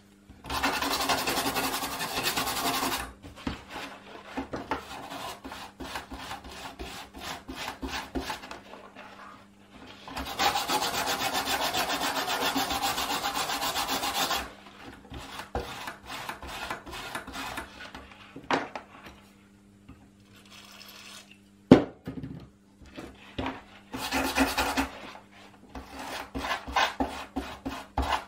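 Rapid brush scrubbing on the underside of a Commodore C64C circuit board, cleaning off old flux from former repairs, in two long bursts of a few seconds and shorter ones near the end. A single sharp knock about three-quarters of the way through.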